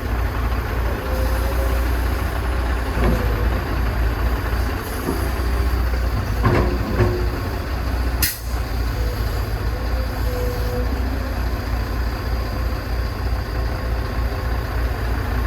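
Heavy diesel engine of an excavator working, a steady low rumble, with a few clanks and knocks from the machine and its load. A sharp click comes a little past halfway.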